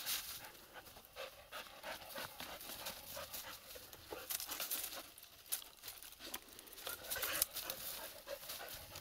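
Hunting Laika panting hard in quick, uneven breaths while it searches a tree trunk for a scent.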